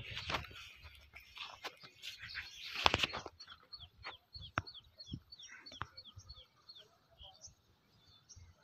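Small birds chirping: short downward-sweeping chirps repeating several times a second. Two louder rushing noise bursts come through, one at the start and one about three seconds in.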